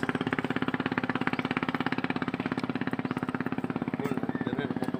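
A small engine running steadily, an even chugging of about a dozen beats a second over a low hum.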